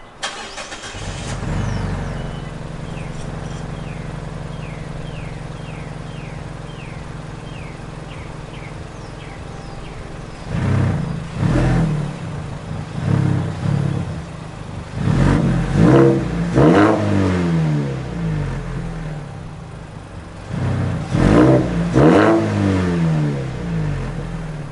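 Mazda3 hatchback's four-cylinder engine starting and settling into a steady idle, then revved in a series of short blips from about ten seconds in, each rising and falling back, with a last pair near the end.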